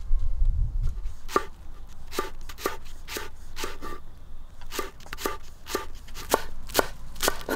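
Knife slicing spring onions on a wooden cutting board: a series of sharp chops, about two a second, starting about a second in. A low rumble fills the first second.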